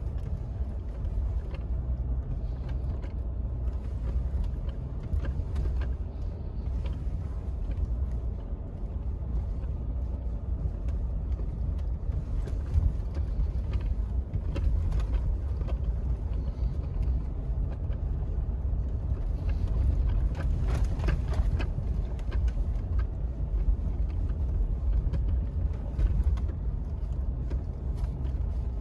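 Truck driving: a steady low rumble of engine and road noise, with occasional light rattles.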